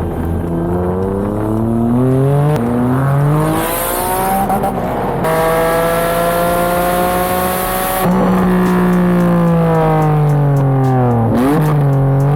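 Honda NSX NA1's C30A 3.0 L V6 engine through a titanium cat-back exhaust, accelerating through the gears. The pitch climbs and drops at each shift, holds high for about three seconds, then falls away as the car slows and climbs sharply again near the end.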